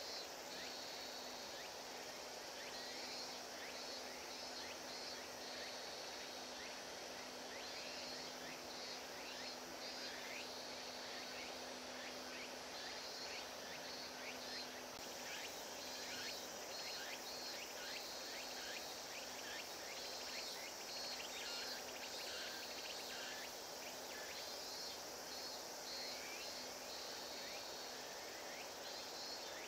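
Outdoor ambience of insects calling in repeated pulsing bursts over a steady hiss, with a faint low hum that stops suddenly about halfway through.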